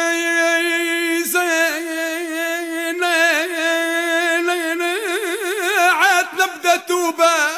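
Tunisian Bedouin folk music: one long held note, steady at first, then wavering in a wide vibrato that grows stronger and breaks into short ornamented notes near the end.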